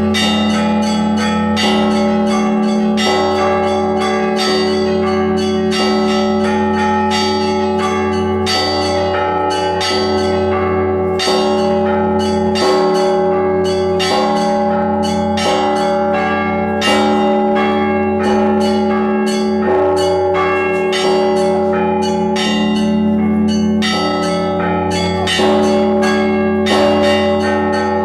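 Orthodox church bells rung together in a continuous peal: frequent strikes of smaller, higher bells ring over the steady hum of larger, deeper bells.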